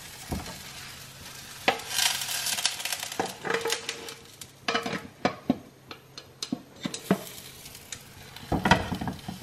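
An apple omelette sizzling as it fries in a pan, with clinks and knocks of a glass lid against the pan as the omelette is turned out onto the lid and slid back in; the loudest knocks come near the end.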